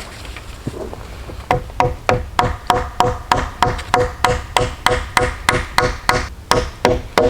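A hand tool striking wood in a steady rhythm of about three blows a second, each with a short ringing note, starting a second and a half in.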